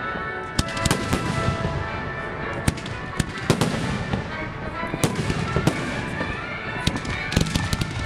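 Aerial fireworks bursting in quick succession: a continuous run of sharp bangs and crackles, with a thick cluster of bangs near the end.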